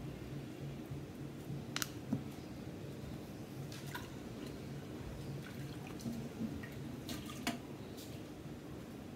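A steady low hum with a handful of light, sharp clicks and taps scattered through it.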